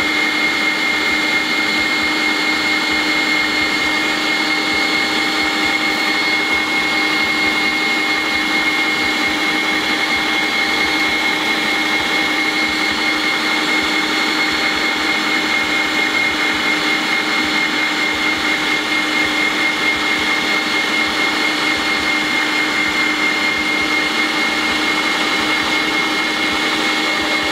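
Electric meat grinder running steadily as it pushes minced pork and beef through a sausage-stuffing horn into casing: a loud, even motor whine that holds the same pitch throughout.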